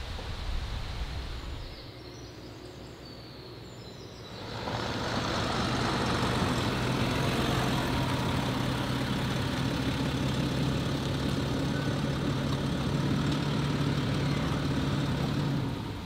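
A motor vehicle driving: steady engine and road noise with an even low hum, starting suddenly about four seconds in and cutting off just before the end. Before it, only a soft hiss.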